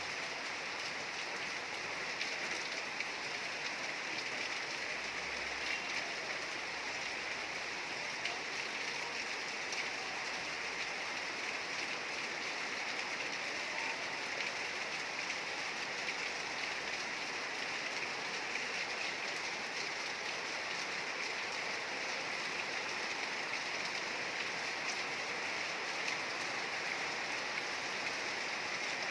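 Steady rain falling, a dense even hiss of drops with faint individual patters.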